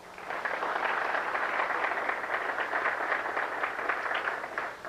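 Audience applauding, a dense patter of many hands clapping that swells up within the first half second and fades out near the end.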